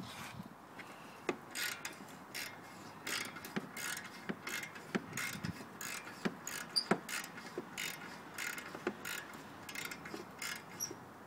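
Ratchet wrench clicking through a run of short strokes, about one every half second or so, as a bolt on the quad's exhaust pipe bracket is undone.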